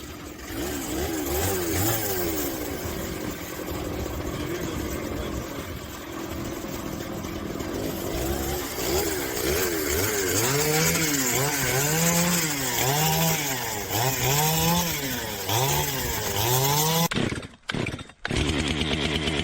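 Chainsaw running under cutting, its engine speed rising and falling over and over as the throttle is worked. It drops out briefly near the end, then resumes at a steadier pitch.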